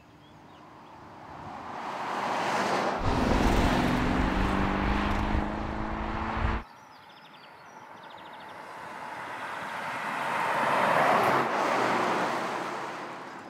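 Two pass-bys of a 2021 Porsche Cayenne GTS heard from the roadside, its twin-turbo V8 running under tyre and road noise. The first swells with the engine note clear in the middle and cuts off suddenly about six and a half seconds in. The second rises to a peak as the car passes and then fades.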